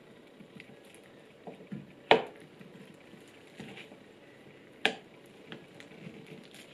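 Stainless-steel potato masher mashing a banana in a ceramic bowl: soft squishing presses, with two sharp clinks of the metal head against the bowl, one about two seconds in and another about three seconds later, the first ringing briefly.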